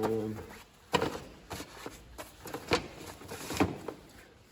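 Light handling clicks and knocks of oscilloscope test accessories, such as amp clamps and leads, being picked up and moved, with sharper clicks about a second in, near three quarters of the way, and shortly after.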